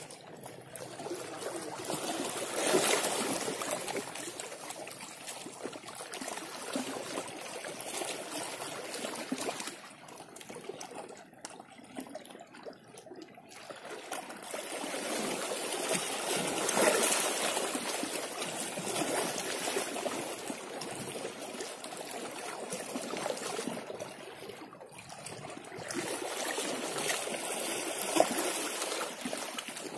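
Small waves lapping and trickling among shoreline coral rocks, a soft irregular wash that swells and fades, dropping quieter twice.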